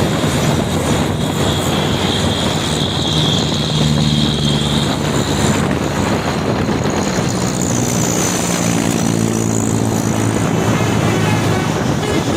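Heavy trucks' diesel engines labouring up a steep climb, a steady deep drone whose pitch shifts a couple of times as the trucks pass, with a thin high whine for a few seconds near the start.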